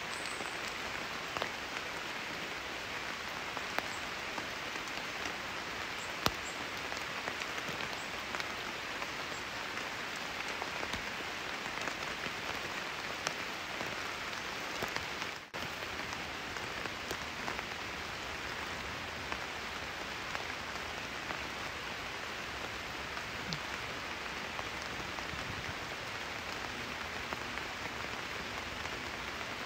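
Steady rain falling on foliage and a wet road, an even hiss with a few sharp ticks scattered through it. The sound dips briefly about halfway through.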